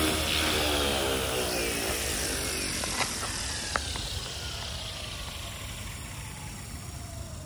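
Align TB40 electric RC helicopter's rotor and motor whine dropping in pitch and fading away over several seconds. Two sharp clicks sound about three seconds in and again just under a second later.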